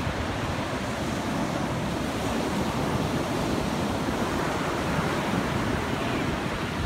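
Steady rush of ocean surf breaking on a sandy beach, with wind on the microphone.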